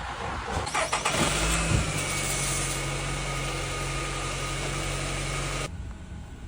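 Nissan Rogue's engine cranked and started about a second in, then idling steadily, a first start after an alternator replacement; the sound cuts off abruptly near the end.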